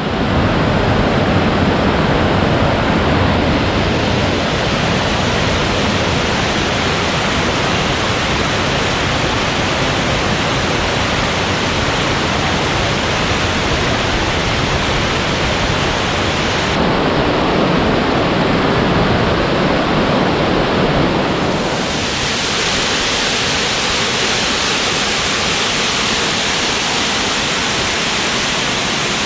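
Waterfall rushing, a loud steady roar of falling water. The sound shifts abruptly about 17 seconds in and again about 22 seconds in, as if cut between separate recordings.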